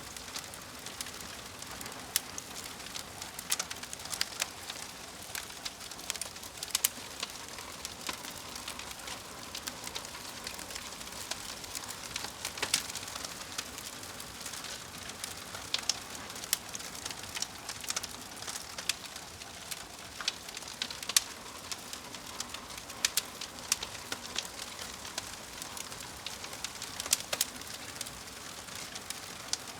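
Wood fire crackling: a steady hiss with many sharp pops and snaps scattered irregularly.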